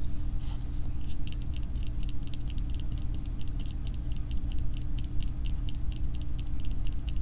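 An ASMR trigger: a run of quick, light clicks or taps, several a second, over a steady low hum.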